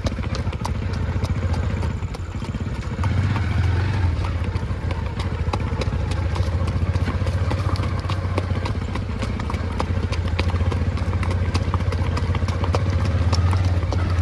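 Hooves of two horses ridden at the ambling revaal gait on a dirt track, a quick, dense clip-clop of many hoof strikes. A steady low drone runs underneath.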